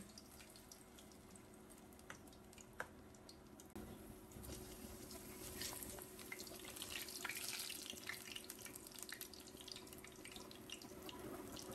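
Battered cauliflower pieces sizzling and crackling faintly in hot oil in a stainless steel frying pan, the crackle growing busier about four seconds in as more batter goes into the oil. Two sharp ticks come about two and three seconds in.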